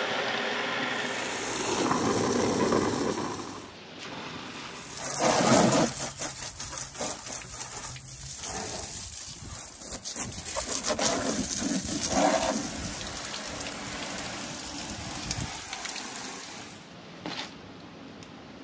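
Water from a garden hose splashing, first running into a plastic wash bucket, then sprayed against a truck's muddy body panels and onto wet concrete. The hiss rises and falls with the spray and dies away near the end.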